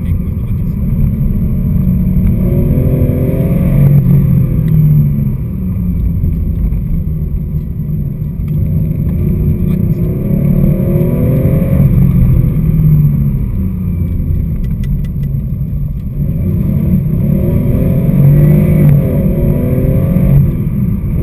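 Porsche 911 SC's air-cooled flat-six heard from inside the cabin, pulling hard with its pitch rising in three sweeps and dropping back between them at gear changes or lifts.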